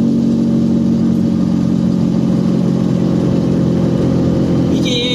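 Small car's engine running steadily at an even cruise, heard from inside the cabin as a constant low hum.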